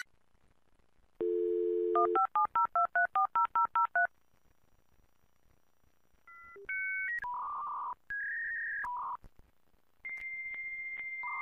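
Telephone dial tone, then a quick run of about a dozen touch-tone (DTMF) digits being dialed. After a short pause come held electronic tones that switch pitch, and near the end a steady high tone over hiss.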